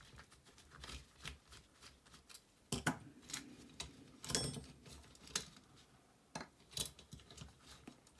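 Irregular clicks, taps and short scrapes of hard plastic parts being worked apart by hand as a hair straightener's hinge and cable are freed, with a louder knock about three seconds in and a short scrape-and-rattle about a second later.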